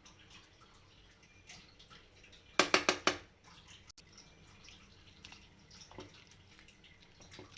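Chicken and bamboo shoot simmering in a pot, with faint scattered bubbling pops. About two and a half seconds in there is a brief clatter of four or five sharp knocks.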